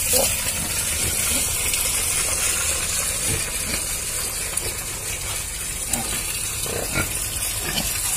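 Pigs in a pen giving a few short, faint grunts, over a steady hissing rush like running water.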